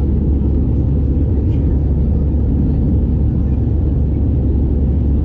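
Steady low rumble of an Airbus A320-214 in its takeoff climb, heard inside the cabin: the CFM56 jet engines at climb thrust and the rush of air past the fuselage.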